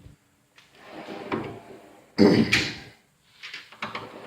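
Metal Snap-on toolbox drawers sliding on their runners: one rolls along and stops with a loud bang about two seconds in, then another slides after it.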